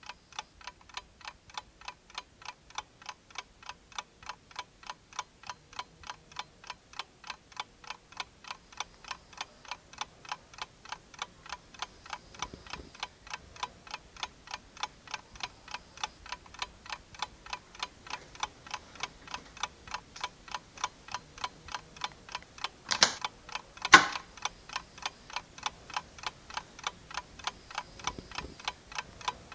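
A clock ticking evenly and quickly, several ticks a second. Near the end come two much louder knocks about a second apart.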